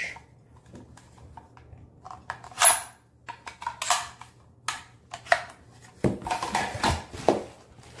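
Plastic packaging bags rustling and crinkling as vacuum accessories are handled and slid out of them, with light clicks and knocks of hard plastic parts.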